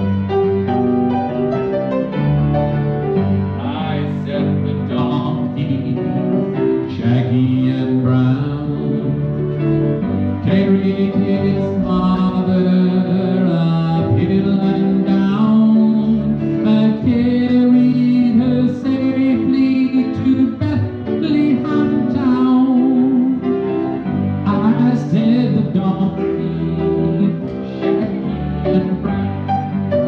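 Live music led by a piano, a slow piece with sustained chords and a melody line over them.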